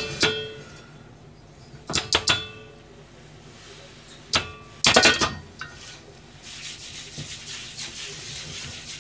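An iron wok knocking against the gas stove's grate a handful of times, each clank ringing briefly, loudest about five seconds in. From about six and a half seconds, a soft steady rasping hiss as the inside of the hot wok is wiped by hand.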